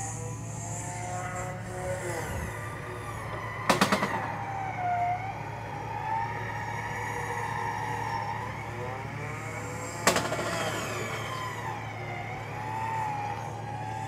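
Off-road Jeep's differential whining, its pitch wavering up and down over a steady low hum, with two sharp clunks about four and ten seconds in.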